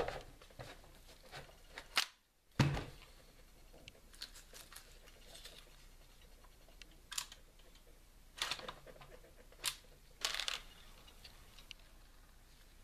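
Mechanical clicks and clacks from handling an Umarex Legends MP 40 CO2 BB gun as its magazine is taken out and its locked-open bolt is closed. Two sharp knocks about two seconds in, the second with a low thud, then a few lighter clicks spread through the rest.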